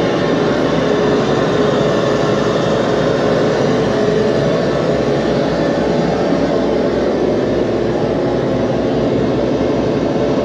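Loud, steady mechanical drone of unidentified machinery running inside a submarine's engine compartment, a constant low rumble with a few held tones over it. The listener is unsure of its source and wonders whether it is the rumble of boats going by.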